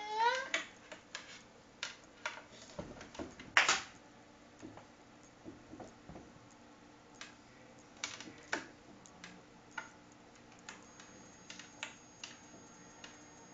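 Scattered, irregular light clicks and taps, the loudest about three and a half seconds in: a cat playing with a TV antenna cable, knocking the cable and its connector about.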